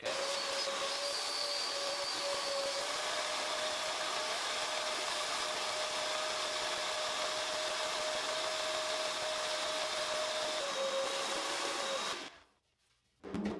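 Shop vacuum running steadily with a thin steady whine, its hose worked into a motorcycle fuel tank's filler to suck out loose rust sediment. It cuts off about twelve seconds in.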